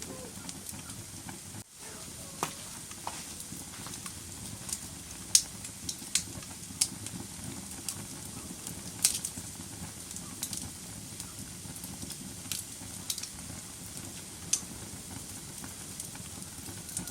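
Wood fire in a fireplace crackling: irregular sharp pops over a steady low rush of burning, with the loudest pops about five and nine seconds in.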